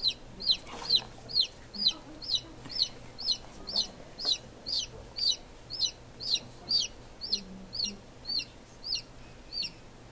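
A newly hatched domestic chick peeping: a steady run of short, high calls, about two a second, each falling in pitch. The calls stop shortly before the end.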